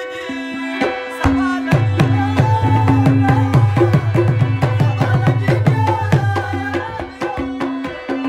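Tabla played in live Pashto music over a harmonium's held notes. The drum strokes quicken into a fast, dense run about a second and a half in, with a booming bass drum whose pitch bends.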